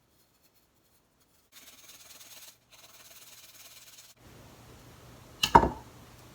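Fresh ginger being grated: a quiet rasping scrape that starts about a second and a half in and lasts a couple of seconds. Later there is a single sharp knock about five and a half seconds in.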